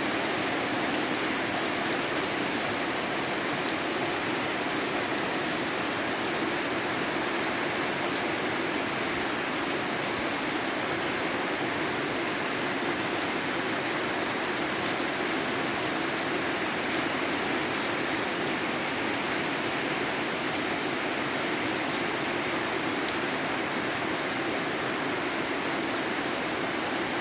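Steady, heavy rain falling without a break during a storm.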